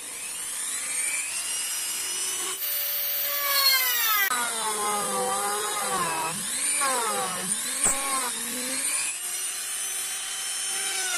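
Mollar mini rotary grinder, mounted as a drill press, spinning up to speed and drilling into wood. Its high whine dips in pitch and recovers several times as the bit is pressed in.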